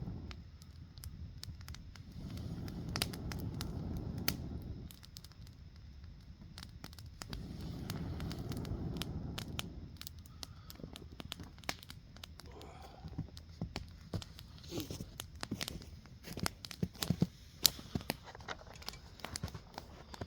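Small campfire crackling, with sharp pops and snaps scattered throughout and coming more thickly in the second half. In the first half there are two swells of low rushing noise, each lasting a couple of seconds.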